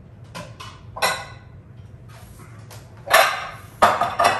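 Dishes and bowls being handled on a kitchen counter: several clinks, one with a short ring, then a louder clatter about three seconds in and a few sharp knocks near the end.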